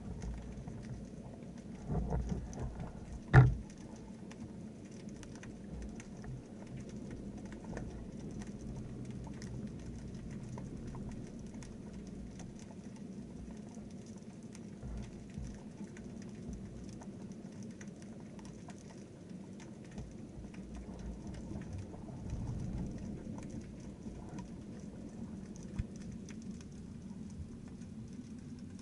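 Underwater ambience heard through a spearfishing camera: a steady fine crackle of tiny ticks over a low rumble, with one sharp knock about three seconds in.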